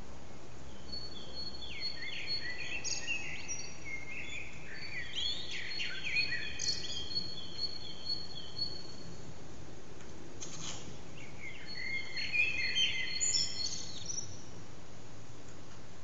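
Common blackbirds singing at dawn: clusters of quick, varied warbling phrases from about a second and a half in until about eight seconds, then again around twelve seconds in, over a steady low background noise.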